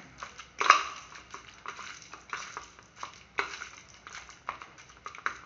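Marinated chicken pieces being mixed in a small steel bowl: a run of short, irregular stirring strokes.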